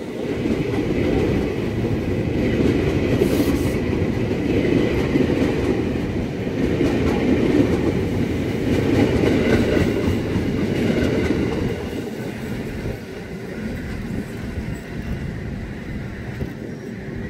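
Former JR 205-series electric commuter train running past close by, a steady heavy rumble of its wheels on the rails. The rumble eases about twelve seconds in as the cars clear, leaving a quieter running noise.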